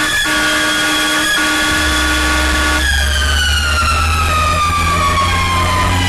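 Fire truck siren holding one pitch, then, a little under halfway through, sliding slowly and steadily down in pitch. A low engine rumble sits underneath from about two seconds in.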